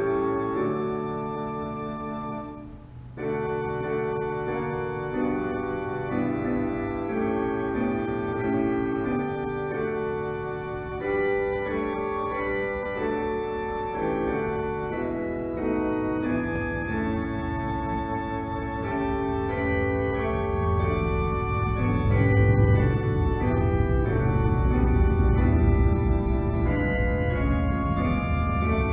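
Organ playing slow, held chords, with a brief break about three seconds in and the low bass notes growing louder in the second half.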